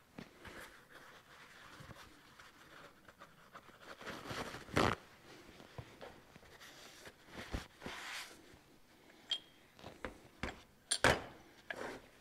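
Shop rag rubbing and rustling as spilled transmission fluid is wiped off a workbench, with a few sharp knocks of parts being handled on the bench; the loudest knock comes about a second before the end.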